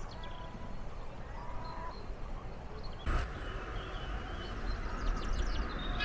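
Faint calls of a large flock of birds wheeling over a feeding station: one short call about a second and a half in and a quick run of short rising calls near the end, over a low wind rumble on the microphone.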